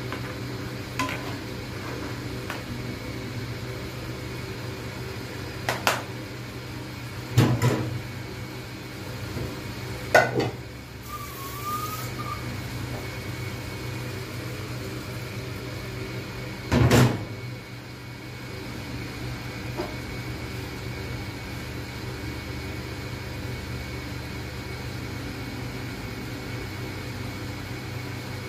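Steady electrical hum of a portable cooktop under a simmering pan, broken by a few sharp knocks of a spoon against the frying pan, the loudest ones spread through the first two-thirds.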